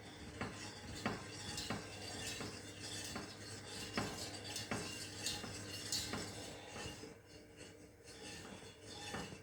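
A spoon stirring a milk-and-pudding-powder mixture in a pan on the boil, clinking and scraping against the pan at a regular pace, about once every half second to second.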